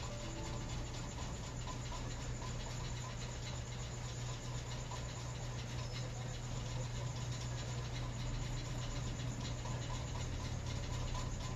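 Steady low hum under an even background hiss, with no distinct events: room tone.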